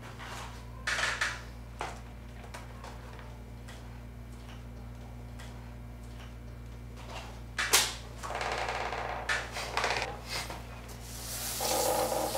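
Small objects being handled on a kitchen tabletop: scattered clicks, taps and knocks with some rustling, the sharpest knock about two-thirds of the way through, over a steady low room hum.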